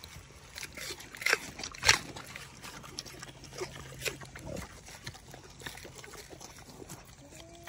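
Vietnamese pot-bellied pigs munching lettuce up close: irregular wet crunching and smacking, the loudest crunch about two seconds in.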